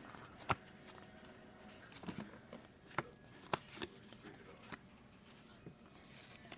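Magic: The Gathering cards being handled and flipped through, with scattered light snaps and clicks over faint rustling.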